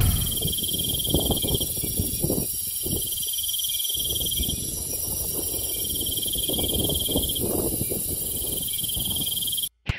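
Insects trilling at dusk: several steady high-pitched trills together, one coming and going in stretches of a second or two, over a low uneven rumble. The sound cuts off suddenly just before the end.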